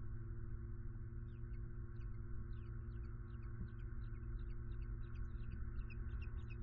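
Steady low hum and rumble from the nest camera's microphone, with quick high chirps, several a second, starting about a second in.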